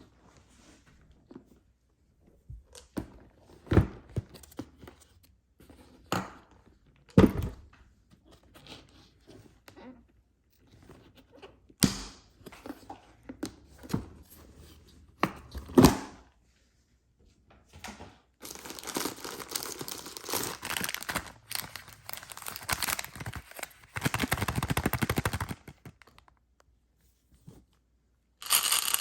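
Candy packaging being handled and opened: scattered taps and knocks on the packages, then several seconds of continuous crinkling and tearing of a wrapper, with a short crinkle again near the end.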